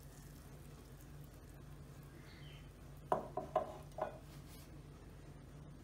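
Low steady hum in a quiet kitchen; about three seconds in, four light clinks in quick succession, a glass water jar knocking against steel bowls.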